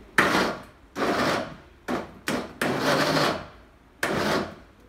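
Countertop blender pulsed in a series of short bursts, each under about a second, chopping orange slices with their peel in their soaking syrup. The short pulses keep the orange coarsely chopped for marmalade rather than fully puréed.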